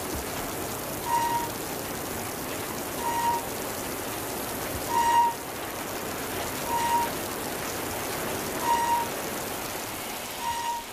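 Steady rain-like hiss with a short electronic beep repeating about every two seconds, the outro of the song's soundtrack.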